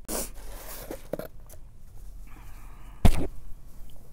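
Packaging being handled: rustling and a few light knocks as a canvas tote is pulled out of a box packed with tissue paper, with one dull thump about three seconds in, the loudest sound.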